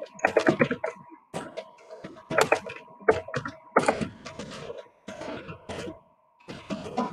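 Typing on a computer keyboard in quick clusters of keystrokes with short pauses between them, over a faint steady tone.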